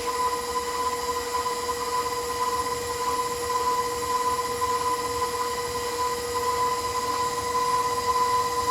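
Electric stand mixer running steadily, a constant motor hum with a steady whine, as it beats a butter, sugar and guava batter.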